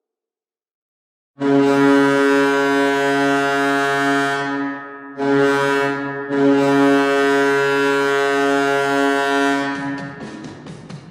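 NHL arena goal horn: a low horn sounds three blasts, a long one of about three seconds, a short one and another long one, after a brief silence. Near the end a goal song with drums starts.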